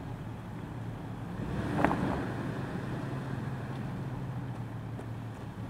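Engine of a red Ford pickup idling with a steady low hum, and a brief faint sound about two seconds in.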